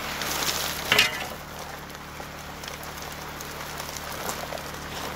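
Water spraying and rushing through a gold highbanker's hopper and sluice over a steady low pump hum. A shovelful of gravel goes into the hopper with a louder rush, ending in a sharp hit about a second in.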